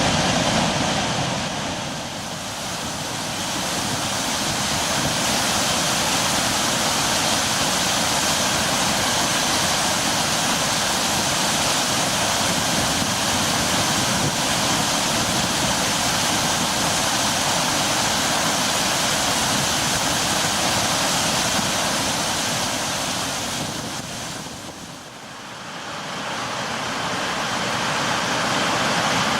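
Flood water released through the dam's spillway gates, a loud, steady rush of falling and churning water. It dips briefly twice.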